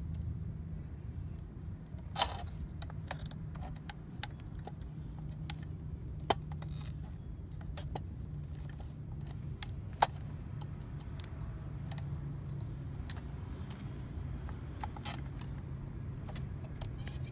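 Small clicks and clinks from handling the plastic and metal parts of a fuel pump hanger assembly as a new pump is fitted into it by hand, with three sharper snaps about two, six and ten seconds in. A steady low rumble runs underneath.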